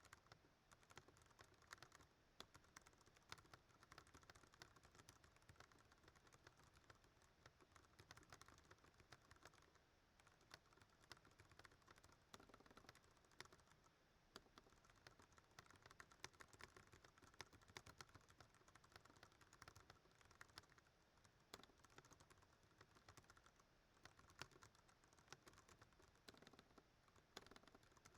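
Faint, fast, continuous typing on a Ducky One 2 Mini mechanical keyboard with Cherry MX Brown switches: a dense, uneven stream of key clicks.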